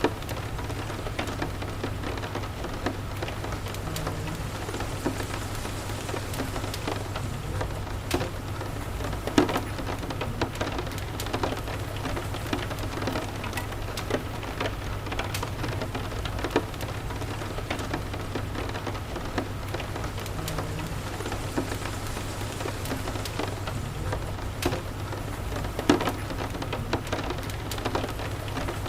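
Steady rain with many irregular sharp ticks and pops scattered through it, a couple of them louder, over a steady low hum.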